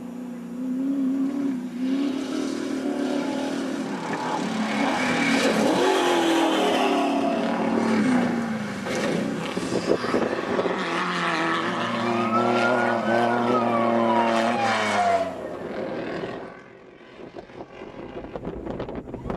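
Off-road race truck engine revving hard as it drives by, its pitch climbing and falling with throttle and gear changes. One long climb peaks and drops away about 13 seconds in. The engine sound falls off sharply about sixteen seconds in.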